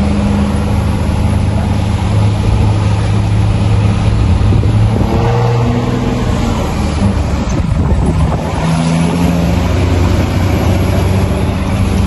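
Truck engine running under way, heard from inside the cab, a steady low hum whose note changes about halfway through.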